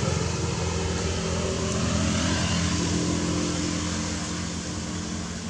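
An engine running steadily: a low, even hum made of several steady tones over a faint hiss, fading a little near the end.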